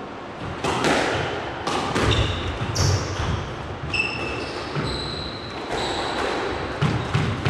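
A squash rally: the ball cracking sharply off racket and walls about once a second, with short high squeaks of court shoes on the floor and low thuds.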